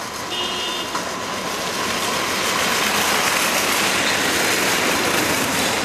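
Shopping cart rolling fast down a paved hill: a rattling rumble of its small wheels, growing louder over the first few seconds.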